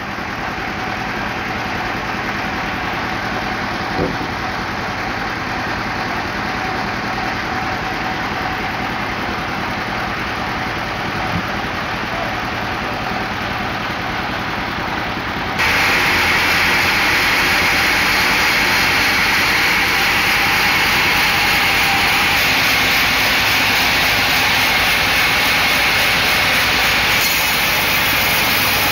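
Stationary engine driving a band sawmill, running steadily. It gets abruptly louder and hissier about halfway through, and there are two short knocks in the first half.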